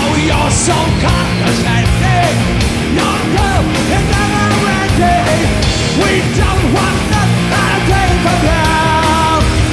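Loud rock music with a singing voice over a steady drum beat.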